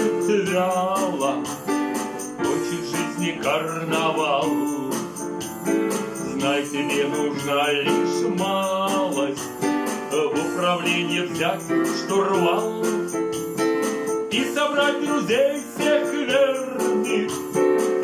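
Music played on a Casio digital piano, with a rhythm backing that has light jingling percussion on the beat.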